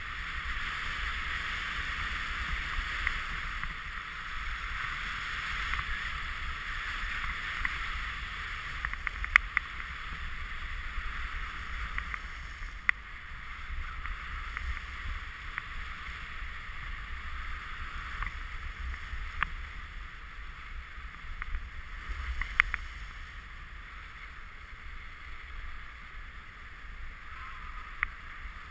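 Alpine skis sliding and carving on groomed snow, a steady hiss with a low wind rumble on the helmet camera's microphone and a few sharp clicks along the way. The hiss eases near the end as the skier slows.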